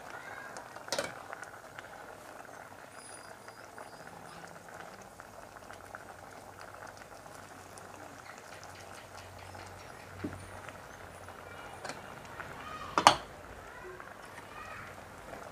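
Tamarind broth with string beans boiling in a stainless steel pot on a gas stove, a steady bubbling with fine crackle. A sharp knock comes about a second in, and a louder one near the end.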